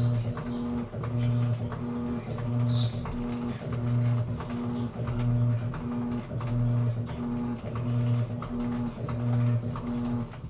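Electrolux Essential Care 11 kg washing machine running its wash, a low motor hum swelling in regular pulses about once every 1.3 seconds with scattered light clicks, stopping near the end.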